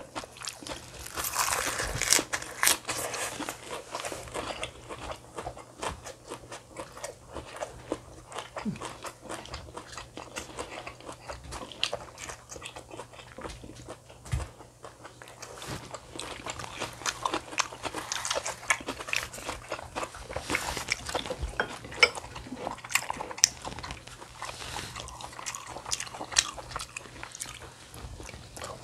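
Close-miked eating: a person biting and chewing food, with irregular crisp crunches and wet mouth clicks, busiest in the first few seconds and again in the second half. A faint steady low hum runs underneath.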